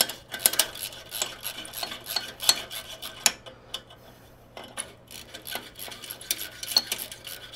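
Socket wrench turning the screw of a hose clamp on a motorcycle exhaust heat shield, loosening it, with many short irregular metal clicks and scrapes and a brief lull about four seconds in.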